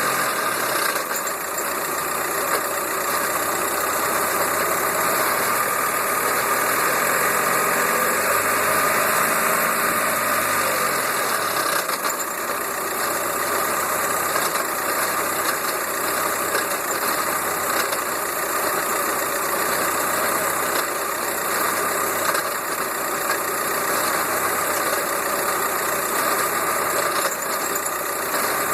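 VW Golf Mk4 engine and front driveline running in fifth gear with the front wheels spinning in the air. The revs rise and fall a few times in the first dozen seconds, then it runs steadier under light throttle with a rough, knocking racket, a noise the owner suspects may be a bad wheel bearing.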